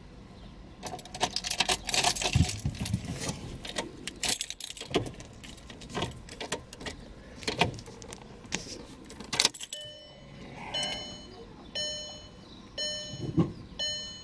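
Car keys jangling on their ring as the ignition key of a VW Golf Mk5 is put in and turned. From about ten seconds in, the instrument cluster's warning chime sounds over and over, about once a second, as the ignition comes on with the warning lamps lit.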